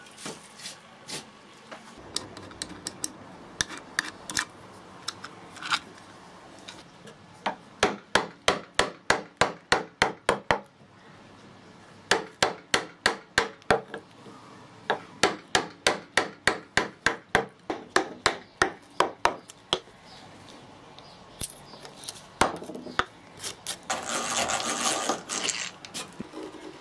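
A chisel being struck into spalted beech, chopping out a shallow square recess, in runs of sharp knocks about three a second. Near the end comes a couple of seconds of drilling into the wood.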